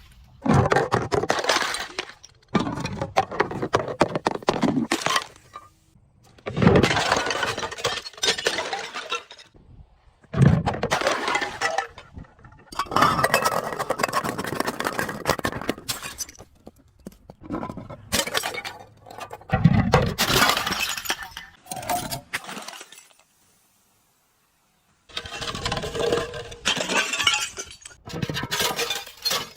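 Glass bottles breaking and being crushed, in repeated bouts of crunching, crackling and clinking glass shards with short pauses between them. The sound cuts to dead silence for about two seconds near the end.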